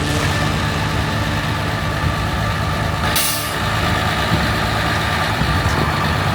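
Heavy truck engine running steadily, with a short burst of air hiss about three seconds in.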